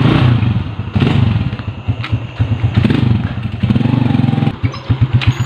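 Motorcycle engine running unevenly at low revs. About four and a half seconds in it settles into an idle with distinct pulses, about seven a second.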